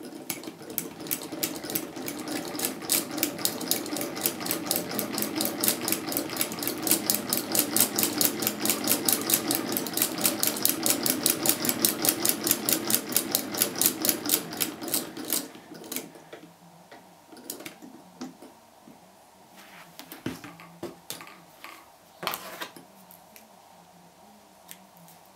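Hand-cranked antique G.J. Olsen sewing machine, built around 1910, stitching through cloth: a rapid, even clicking of about five a second that builds over the first few seconds and stops after about fifteen seconds. Afterwards there are only a few scattered single clicks.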